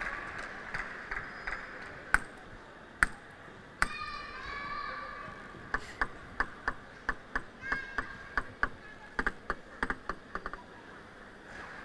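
Table tennis ball clicking: three single sharp clicks about a second apart, then a rally of quick ball strikes on bats and table, about three or four a second, lasting several seconds. A short voice is heard near four seconds in.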